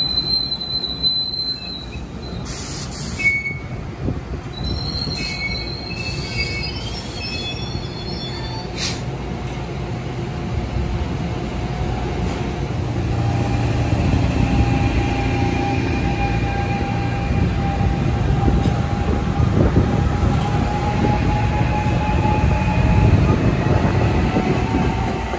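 NJ Transit Arrow III electric multiple unit rolling slowly past, its wheels squealing in high tones during the first several seconds. From about halfway, the wheel rumble grows louder and a steady electric whine joins it.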